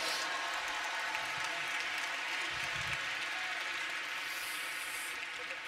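Applause from a large audience: dense, even clapping that holds steady throughout.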